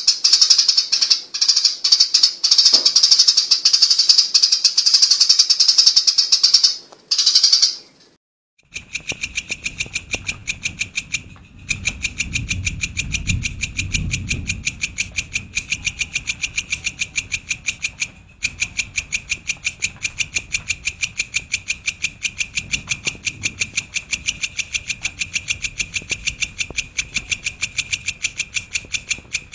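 Recorded songbird song: a dense, rapid, high-pitched warbling for about eight seconds, then after a short break a fast, even string of sharp repeated chirps that runs on steadily.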